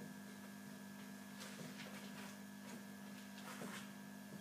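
Quiet room tone: a steady electrical hum with a few faint, short rustles and scratches.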